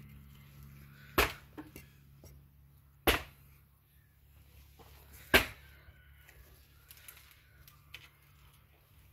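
Three sharp knocks about two seconds apart, with a few fainter clicks between them.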